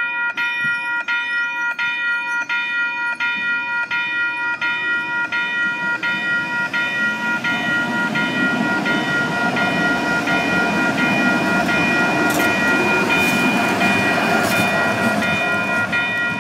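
Level-crossing warning bell ringing about twice a second while a C-Train light-rail train of Siemens S200 cars passes. A rising high whine comes near the start, then the rumble of the wheels on the rails builds to its loudest a little past halfway, with a few sharp clicks.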